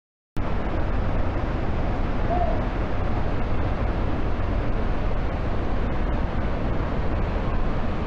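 Steady rushing roar of a large waterfall in heavy flood, mixed with wind buffeting the microphone; the sound cuts in abruptly a moment after the start.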